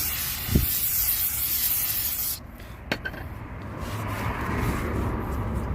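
Aerosol brake cleaner hissing as it is sprayed onto a new brake rotor for about two and a half seconds, cutting off suddenly, with a short knock just after it starts. Then a click and a softer rubbing sound.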